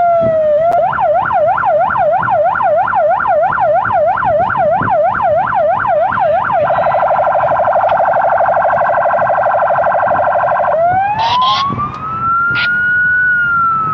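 Police patrol car's electronic siren cycling through its tones. The end of a falling wail gives way to a fast yelp of about four sweeps a second for some six seconds, then a very rapid warble for about four seconds, then a slow wail that rises, peaks and begins to fall near the end. A few short clicks sound as the wail starts.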